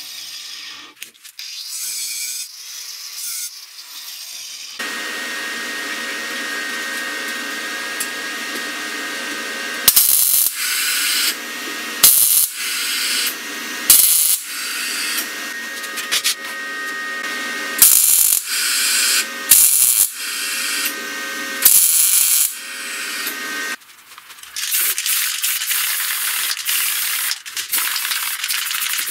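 Arc welder humming steadily, with several short, loud welds about every two seconds. Near the end an aerosol spray-paint can hisses.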